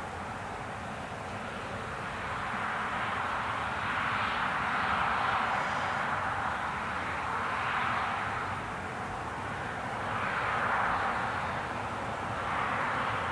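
Boeing 777-200 airliner on final approach, its twin turbofan engines at low power giving a steady jet noise that grows gradually louder as it nears, rising and falling in slow swells.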